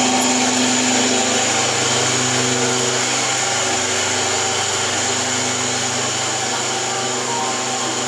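Electric kitchen mixer grinder (mixie) running steadily with a continuous motor drone, grinding soaked and dried rice into flour.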